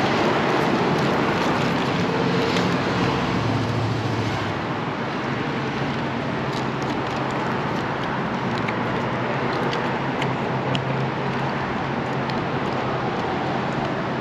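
Steady motor-vehicle rumble and hiss with a constant low hum, and a few faint clicks.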